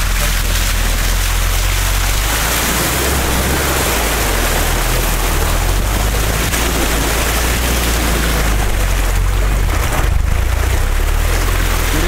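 An off-road vehicle's engine runs with a steady low drone as it ploughs through a muddy, water-filled rut. Water rushes and splashes against the side of the body, loudest in the middle and easing near the end. It is heard from inside the cab.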